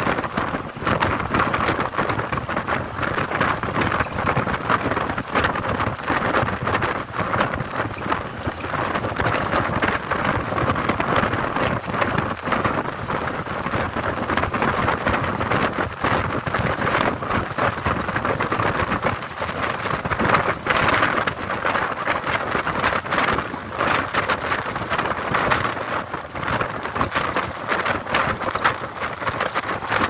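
Steady rush of wind and road noise from a moving vehicle, with wind buffeting and crackling on the phone's microphone.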